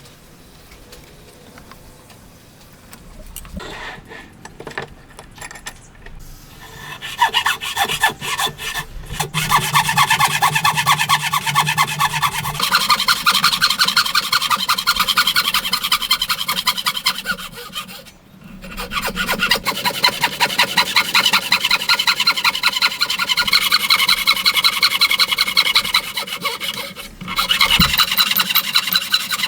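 Hand saw cutting through wood in fast, even strokes, starting about a quarter of the way in after a few light knocks, with two brief pauses.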